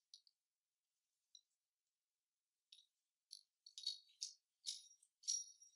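Small metallic clicks and clinks from a chrome-plated Apeks US4 first-stage scuba regulator and its DIN fitting being turned over and worked in gloved hands. A couple of faint ticks come first, then a quick run of about eight bright, slightly ringing clinks in the second half.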